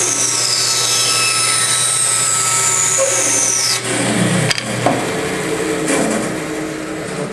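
Band saw running with a steady hum and a high whine falling in pitch; the motor sound stops about four and a half seconds in, followed by a few knocks.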